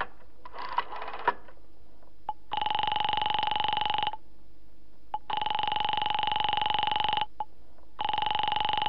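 Telephone ringing tone heard through the receiver: after a few faint clicks, three buzzy rings of about two seconds each with short gaps between them, a call ringing through before Information answers.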